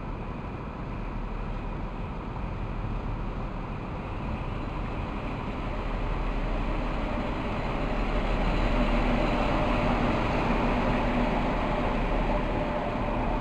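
InterCity 125 High Speed Train running into the platform, the diesel engine of its Class 43 power car and its wheels on the rails getting louder as it comes alongside. A steady engine drone comes in about two-thirds of the way through.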